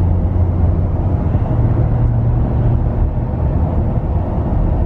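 Inside the cab of a 2021 Ford F-250 with the 6.7 L Power Stroke V8 turbo-diesel on its stock air intake, cruising at road speed. There is a steady low engine drone with tyre and road noise, and the drone rises slightly for a moment midway.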